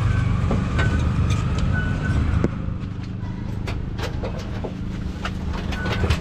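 Tuk-tuk engine running with road noise, dropping to a quieter idle about two and a half seconds in as the vehicle pulls up and stops. Then a few sharp clicks and knocks from handling in the cab.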